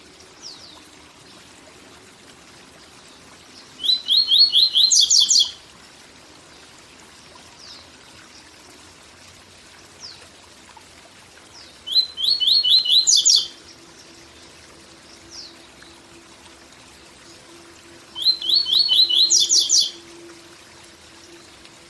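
Papa-capim seedeater singing its 'tui tui zel zel' song three times, with pauses of several seconds between: each phrase is a quick run of even notes ending in a few higher notes. A faint steady waterfall rush runs underneath.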